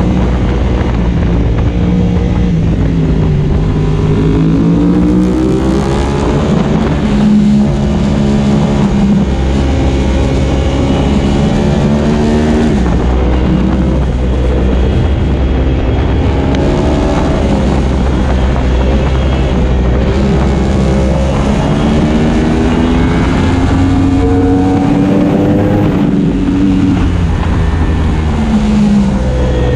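Yamaha R1M's crossplane inline-four engine at track speed, its pitch climbing hard through each gear and dropping back at the shifts and braking points, over and over.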